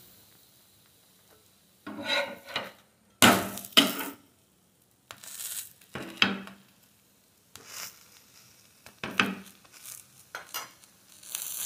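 Metal spatula scraping and pressing on a flat non-stick tawa griddle under a cooking gourd pancake, in several short strokes with pauses between them.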